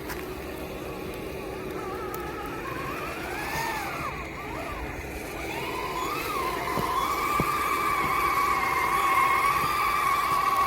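A 3D-printed RC crawler's electric motor and gear train whining. The pitch rises and falls with the throttle for the first few seconds, then holds steady and gets louder in the second half.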